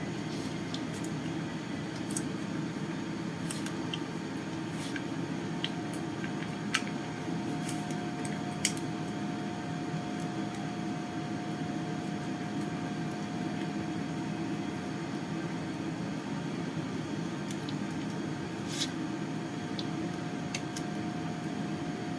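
Steady low hum of a room or fan, with scattered faint taps and clicks of hands working on the rice paper and filling. A thin steady tone joins about seven seconds in.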